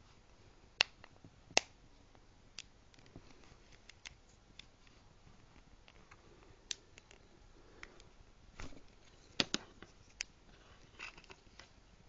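Small sharp clicks and taps from a Nokia 5800 XpressMusic phone being taken apart by hand, as tools and plastic parts click against each other. There are about a dozen at uneven intervals, the loudest two close together near the start, with a short scrape near the end.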